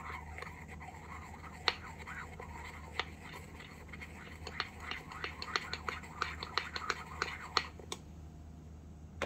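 A small utensil mixing in a small metal bowl: irregular light clicks and taps with soft scraping, coming faster in the middle.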